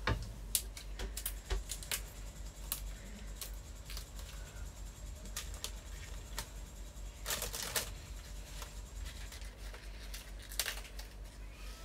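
Spring green leaves being torn from their stalks and handled on a chopping board: scattered crisp rips and rustles, with a denser cluster about seven seconds in.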